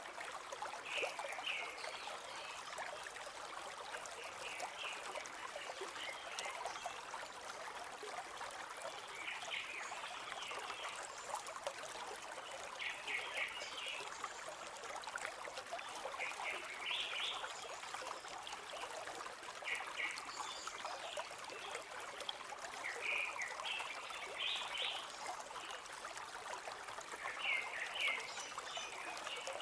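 Steady rush and trickle of a flowing forest stream. Short, high chirps recur every few seconds over it.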